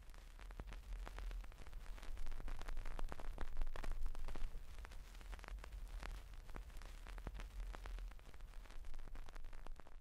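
Crackling static hiss, like worn film or vinyl surface noise, with many scattered small pops over a low rumble.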